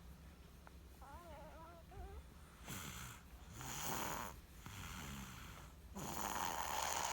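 A sleeping baby snoring like an adult: a few noisy snoring breaths, the loudest near the end.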